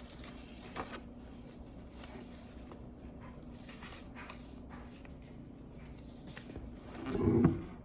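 Faint rustling and handling noise over a steady low hum, with one louder, muffled thump near the end.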